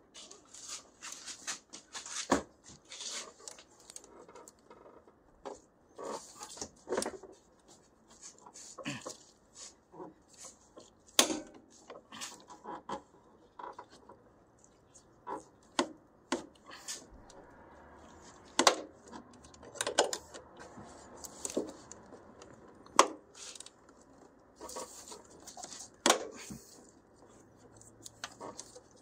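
Hand tools and metal parts clinking and knocking at irregular intervals during engine disassembly, with sharper knocks about 11, 23 and 26 seconds in.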